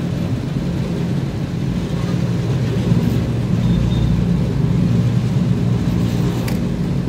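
Petrol pump dispensing fuel into a motorcycle tank through the nozzle, a steady low hum throughout.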